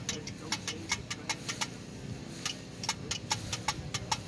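A quick, irregular run of sharp ticking clicks, several a second, over the low steady hum of a car engine idling.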